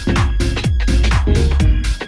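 Electronic dance music with a steady kick drum, about two beats a second.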